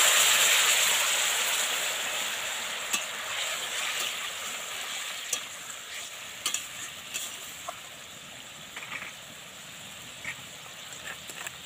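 Boiled green banana, potato and other vegetables tipped with their liquid into hot oil in a wok, hissing loudly as they hit and the sizzle fading steadily over several seconds. A metal spatula stirs through them, with a few sharp clinks against the wok.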